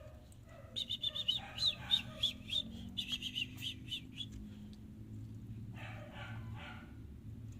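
A rapid run of short, high-pitched chirping calls, many notes in quick succession, stopping a little after four seconds in; fainter, lower calls follow near the end.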